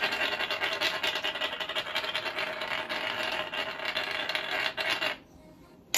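Hand-twisted spice grinder grinding seasoning into a bowl: a fast, even run of gritty clicks that stops about five seconds in, followed by a single sharp click near the end.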